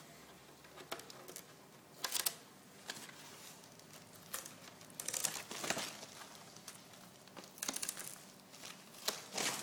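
Protective cover sheet and its tape tabs being peeled off an LCD monitor's screen, crinkling in several short bursts.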